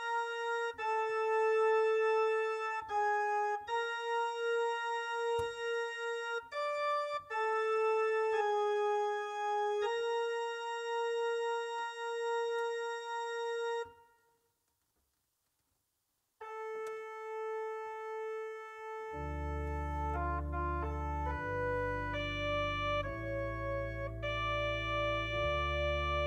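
Digital church organ playing a slow, sustained single-line melody. It breaks off for about two seconds just past the middle; soon after it resumes, chords and deep pedal bass notes join in.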